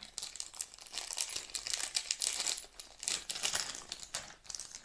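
Small clear plastic bag crinkling in quick, irregular crackles as it is handled and pulled open by hand.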